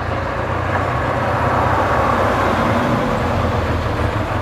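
Road traffic on the street: motor vehicles passing, with a steady low rumble and a rush that swells about two seconds in and then eases.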